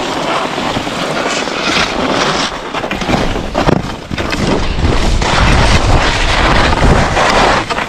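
Wind buffeting a helmet-mounted action camera's microphone while skiing downhill, with skis hissing and scraping over hard-packed snow. The low wind rumble gets stronger about halfway through as speed builds.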